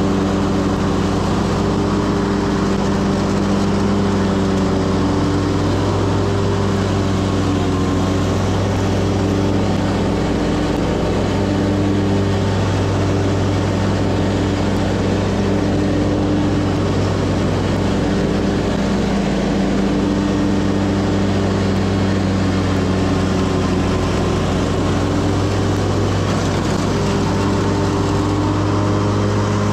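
Commercial lawn mower's engine running steadily at a constant speed, heard close up from the operator's position.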